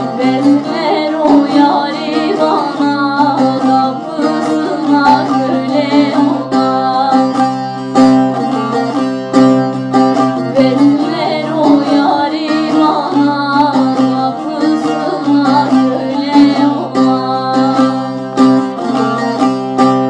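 Background music led by a plucked string instrument, with quick picked notes throughout.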